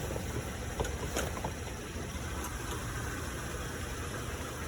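A car engine idling steadily, with a couple of light clicks about a second in.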